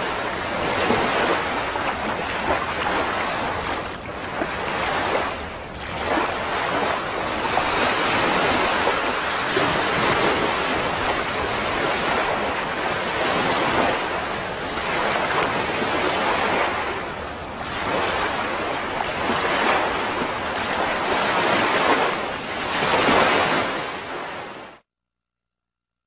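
Sea surf: waves breaking and washing up on a beach, swelling and ebbing every few seconds, cutting off suddenly near the end.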